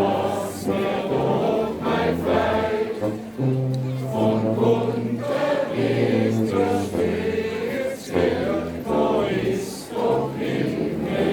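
Music: many voices singing together in a folk tune, over steady low bass notes that change every second or so.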